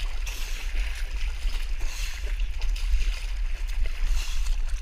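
Muddy water splashing and sloshing as a person crawls through a shallow, water-filled mud trench, with surges roughly once a second, over a steady low rumble.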